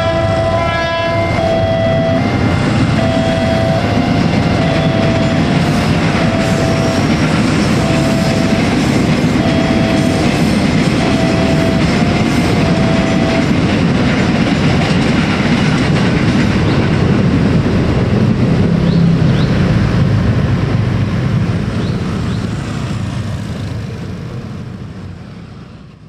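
Level-crossing warning alarm beeping over and over, stopping about 13 seconds in, while a KRL Commuterline electric train passes with a heavy rumble and rattling wheel clatter. The sound fades away over the last few seconds.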